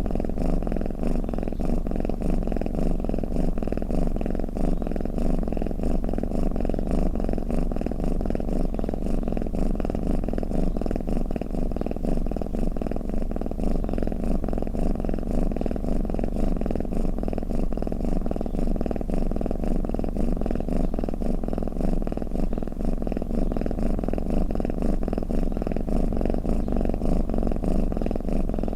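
Domestic cat purring steadily, a fast, even, continuous rumble with no breaks.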